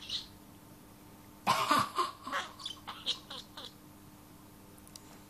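Pet budgerigar close to the microphone giving a brief chirp, then, about a second and a half in, a loud raspy run of chatter lasting about two seconds.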